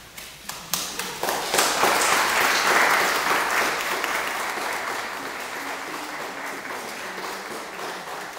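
A small group applauding: a few scattered claps, then applause that swells about a second in and slowly dies away.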